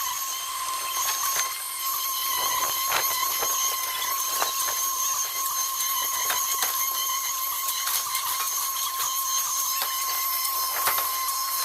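Concrete pump running: a steady high whine with irregular clicks and knocks throughout.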